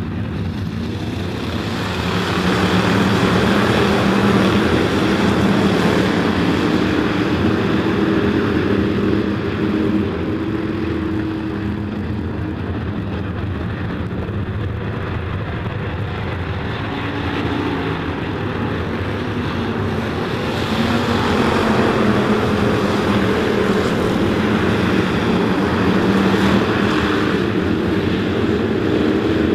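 A pack of IMCA hobby stock dirt-track race cars racing by, their engines running hard with shifting pitch. The sound swells loudly twice as the field passes close.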